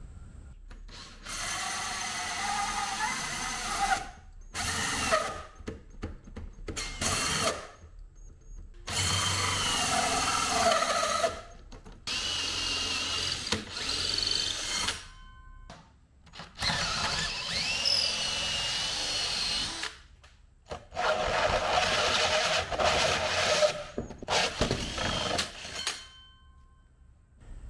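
Cordless drill driving a hole saw through a wooden board in repeated runs of a few seconds each, stopping and starting. The motor whine rises and falls as the saw bites.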